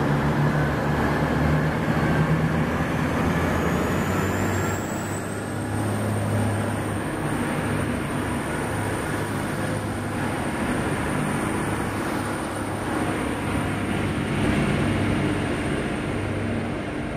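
VLocity diesel multiple unit pulling away under power: the underfloor diesel engines run with a steady low drone. A high whine rises in pitch about three to six seconds in, then holds steady as the railcars move off.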